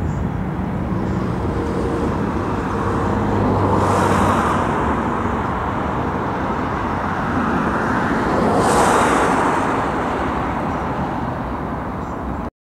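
Twin turbofan engines of a Cessna Citation XLS+ business jet at takeoff power as it lifts off and climbs away: a steady jet noise that swells twice, then cuts off abruptly near the end.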